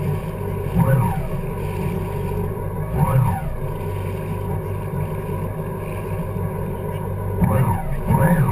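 Yamaha jet ski engine running steadily while underway, with brief louder surges about a second in, about three seconds in, and twice near the end.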